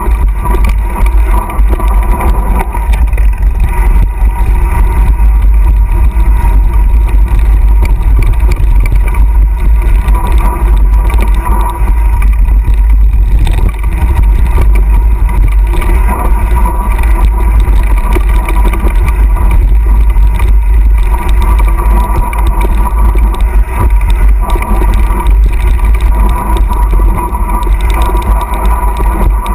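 Loud, steady low rumble of wind buffeting an action camera's microphone on a fast mountain-bike descent, mixed with the rattle of the bike and its tyres on a dry dirt trail.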